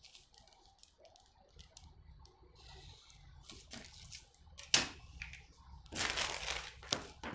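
Marker pen and clear plastic ruler on thin pattern paper: faint scratching and small clicks, with a sharper tap about five seconds in. Near the end the paper sheet rustles as it is grabbed and lifted.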